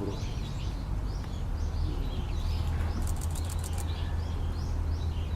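Small birds chirping repeatedly over a steady low rumble, with a quick run of sharp clicks about three seconds in.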